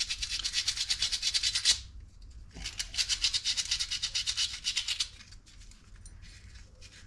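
Brake pad clip being scrubbed clean by hand with sandpaper: quick back-and-forth rubbing strokes, in two bouts with a short pause between, then quieter after about five seconds.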